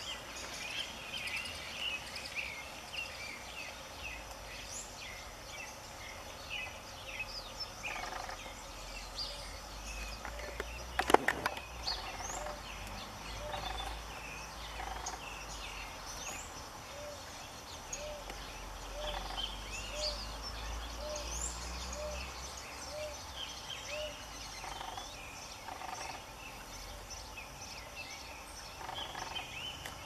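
Robust woodpecker knocking its bill against wood, a quick cluster of sharp knocks about eleven seconds in, as it forages. Around it, small birds chirp and call, and a bird gives a long run of short, low notes, somewhat more than one a second, through the middle.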